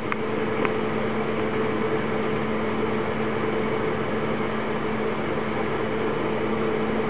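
Steady background hum with an even hiss underneath, unchanging throughout; a few faint clicks in the first second.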